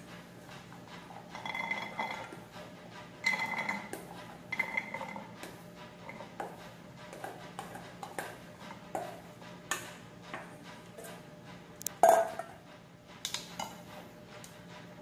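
Spatula scraping and tapping the inside of a stainless steel bowl as cooked chickpeas are emptied into a ceramic serving bowl: scattered clinks and knocks, with a brief ringing metal note a few times early on. A single louder knock comes about twelve seconds in.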